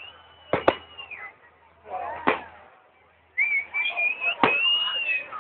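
Fireworks: long, steady, high whistles from whistling shells, one at the start and another from about three and a half seconds in, with sharp bangs of bursts. Two bangs come close together under a second in, one a little past two seconds, and one near the end.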